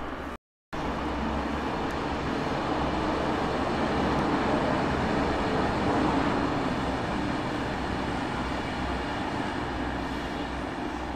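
Two coupled Class 442 Talent 2 electric multiple units rolling slowly past: a steady rumble of wheels on rail with a low hum underneath. It swells a few seconds in and eases toward the end.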